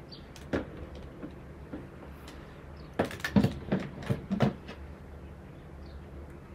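Resin ball-jointed dolls being handled and laid down side by side: a single light knock about half a second in, then a quick cluster of hard clicks and knocks a few seconds later as the jointed bodies and limbs clack against each other and the surface.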